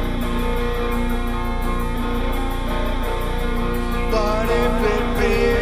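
Recorded music led by guitar, playing steadily; about four seconds in, a wavering, bending melodic line comes in over it.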